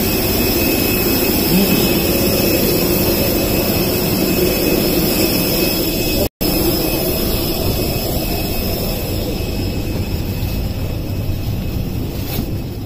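Steady roar of jet aircraft turbines on the apron, with a high whine over it. It breaks off for an instant about six seconds in and fades near the end.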